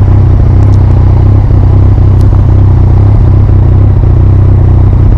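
Yamaha MT-09's three-cylinder engine through an Akrapovic exhaust, running steadily at a constant speed with no gear changes or revving.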